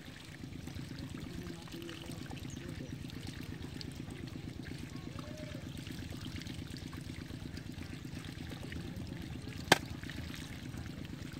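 Water pouring and trickling steadily through a bamboo-slat fish-trap screen into a pit. A single sharp click or knock comes near the end.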